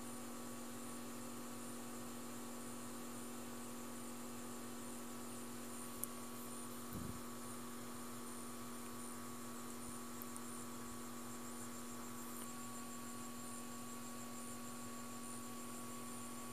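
Steady electrical hum over a faint hiss, with a single brief click about six seconds in.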